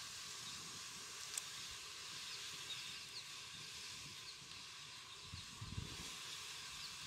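Steady faint hiss with a few faint high chirps, a single sharp click about a second and a half in, and soft low thumps near the end.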